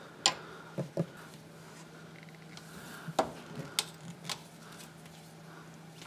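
A few scattered light clicks and taps of a wrench and hand working the engine-oil drain fitting on an outboard's lower cowl, with the clear drain hose attached, over a faint steady hum.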